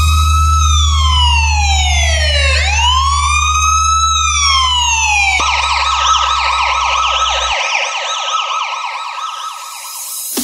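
Police siren sound over a deep steady bass note, as in a bass-boosted siren track: a slow wail sweeping up and down twice, switching about halfway through to a fast warbling yelp. The bass note drops out after about seven and a half seconds.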